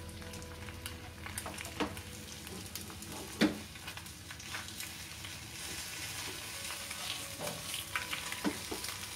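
Egg frying in oil in a non-stick pan, a steady sizzle, with a spatula scraping and knocking against the pan as the egg is worked loose and flipped; the sharpest knock comes about three and a half seconds in.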